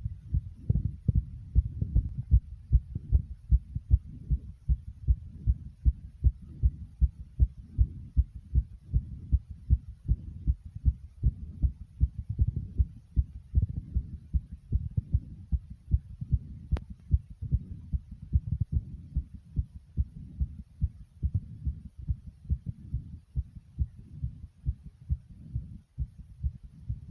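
A person's heart beating fast: a quick, steady run of low thuds.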